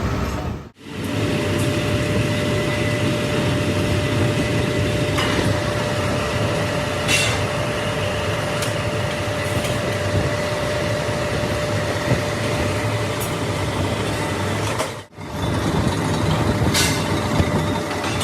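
Steady factory machinery noise with a constant hum and a few light knocks. The sound drops out briefly twice, about a second in and near the end.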